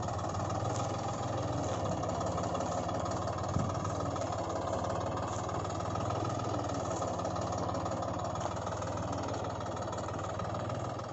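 A motor vehicle engine idling steadily: an even low hum with a mid-pitched drone above it, and one light knock about three and a half seconds in.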